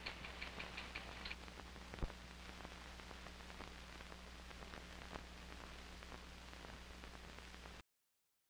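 Faint hiss and low mains hum of an old broadcast recording's soundtrack, with a faint rapid ticking, about five a second, for the first second or so and a single click about two seconds in. The sound cuts off to dead silence near the end.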